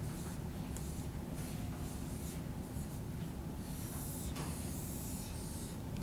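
Red dry-erase marker writing on a whiteboard: several short strokes as the number, the word and a box around them are drawn, over a steady low background hum.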